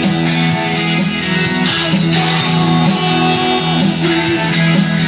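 Loud rock music with guitar, played through an MMats Audio sound system.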